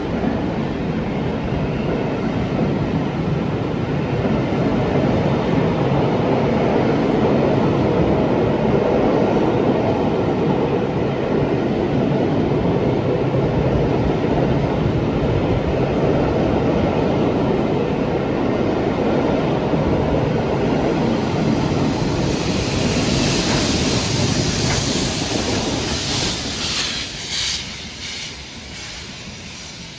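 A rake of passenger coaches rolling past at speed, a loud steady rumble and rattle of wheels on the rails. Near the end a hiss joins in and the noise fades away.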